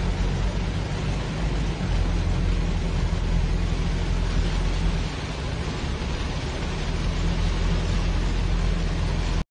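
Steady rushing noise with a heavy low rumble from a moving vehicle: wind and road noise on a phone microphone as the vehicle drives along flooded, rain-soaked streets.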